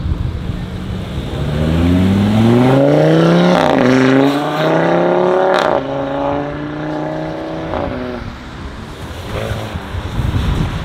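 A car accelerating hard away, its engine revs rising, dropping at a gear change about three and a half seconds in and again with a short crack near six seconds, then fading as it pulls away.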